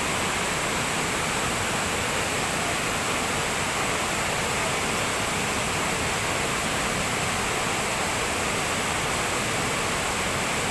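Waterfall pouring: a steady, even rush of falling water with no change in level.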